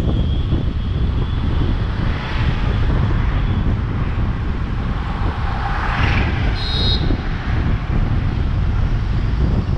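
Car driving through city traffic: steady low road and wind rumble on the microphone. A rushing noise swells about six seconds in, and a brief high-pitched horn beep sounds just before seven seconds.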